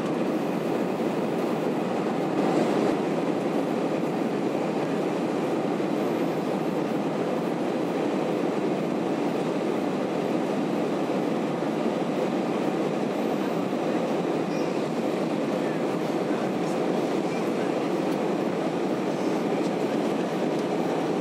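Steady cabin noise inside an Airbus A320 climbing after takeoff: an even rumble of the jet engines and rushing air, holding a constant level.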